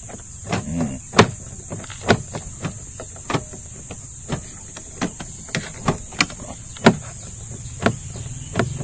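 A newly fitted interior door handle on a Kia Pride being pulled and released again and again, its lever and latch linkage giving over a dozen sharp clicks at irregular intervals.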